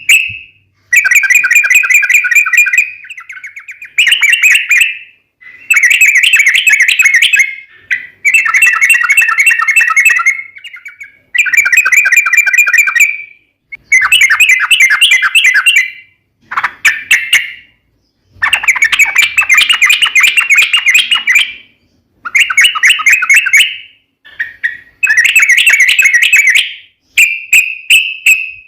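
Yellow-vented bulbul (trucukan) singing loud, long rapid rattling phrases ('ropel panjang'). Around a dozen bursts come one after another, separated by short pauses.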